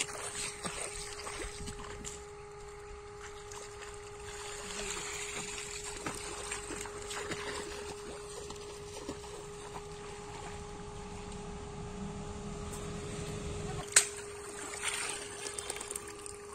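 Bare feet wading and splashing through shallow, muddy pond water, with water sloshing around the legs. A steady hum runs underneath, and a single sharp knock sounds about two seconds before the end.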